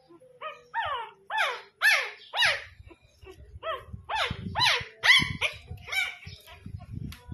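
Very young puppy crying in a rapid series of about a dozen short, high yelps, each falling in pitch, two or three a second, while it is picked up and handled. Low handling rumbles run beneath the cries in the second half.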